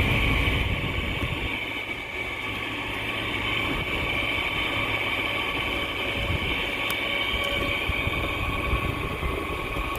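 Arctic King window air conditioner running with a loud, steady buzz from its compressor, with a high whine over a rough low hum. It is a little louder for the first second or two, then settles. The owner says its bearings are shot.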